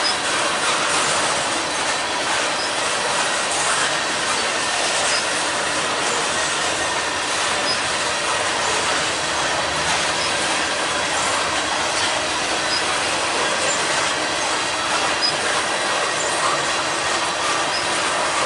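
Freight train tank cars rolling past close by: a steady, loud rush of steel wheels on the rails.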